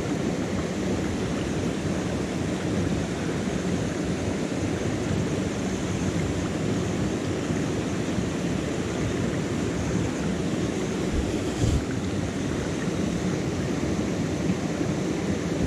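Steady rushing of a small rocky river, water pouring over a little waterfall and running over the stones.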